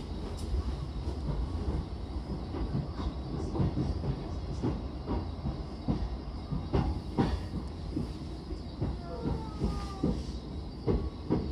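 Running noise inside a JR East E233-7000 series electric train car: a steady low rumble with repeated wheel clacks over rail joints. About nine seconds in, a short falling whine from the Mitsubishi IGBT inverter is heard as the train slows toward a station.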